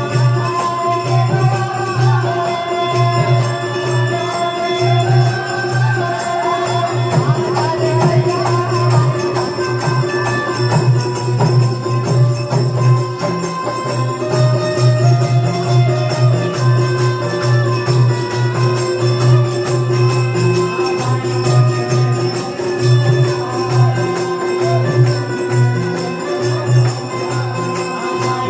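Hindu devotional jagran music, instrumental: a melody moving over a steady held drone, with a driving, even drum beat.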